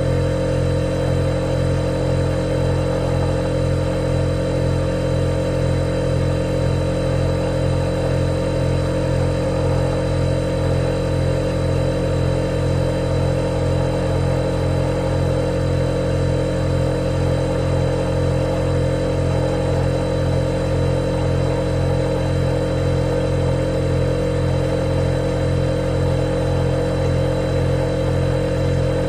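Refrigerator compressor humming steadily: a low, even drone with a slight regular throb and a faint thin high tone above it.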